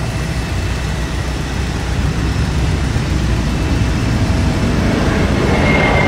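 Jet engines of a widebody twin-jet airliner, which the mechanic takes for an Airbus A310, at takeoff thrust as it lifts off: a loud, steady, deep engine noise, with a high whine coming in near the end and dropping slightly in pitch.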